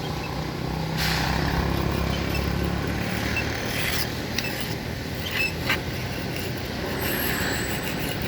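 Road-marking machine running steadily with a low engine hum, a hiss coming in over it about a second in, and a few light clicks.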